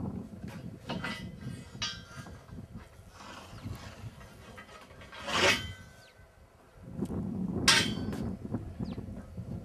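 Metal horse-trailer fittings being handled: a few knocks and clanks, one with a short metallic ring about two seconds in. Two louder harsh bursts come about five and a half and seven and a half seconds in, over a low rumble.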